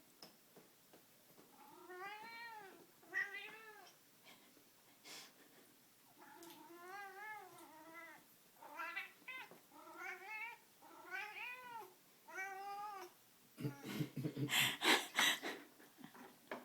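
Domestic cat yowling during intense play with a string toy: a series of drawn-out meows, each rising then falling in pitch. Near the end comes a burst of loud knocks and scrapes, the loudest part.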